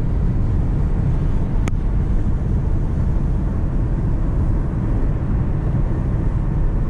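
Car driving at highway speed, heard from inside the cabin: a steady, loud rumble of tyre and wind noise, with one faint click about a second and a half in.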